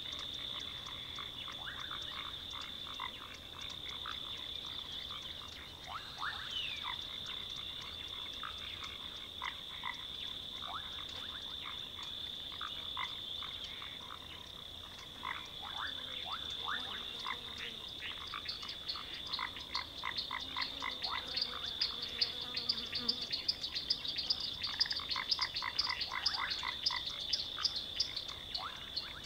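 Swamp ambience: a chorus of frogs croaking in many short, quickly repeated calls over a steady high-pitched drone. The calls grow denser and louder about two-thirds of the way through.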